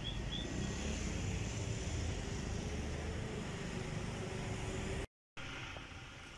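A vehicle engine running steadily with a low rumble, broken by a brief total dropout of sound about five seconds in, after which the background is quieter.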